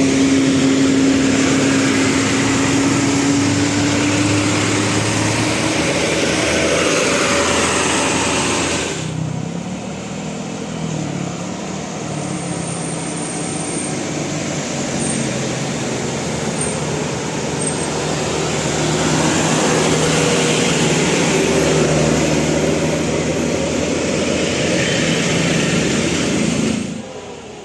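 Road vehicle engines running with traffic noise, in two stretches joined by an abrupt cut about nine seconds in. The first stretch holds a steady engine note that rises slightly.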